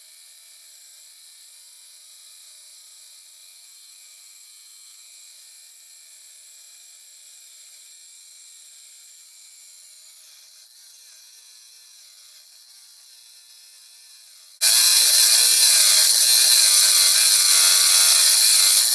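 Abrasive cut-off wheel of a chop saw grinding through an aluminum bar: a loud, hissy, high-pitched grinding that starts abruptly near the end. Before it, only a faint steady hum.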